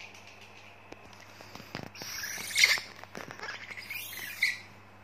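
Baby monkey's high-pitched squeals, starting about two seconds in and loudest about halfway, then another short squeal near the end.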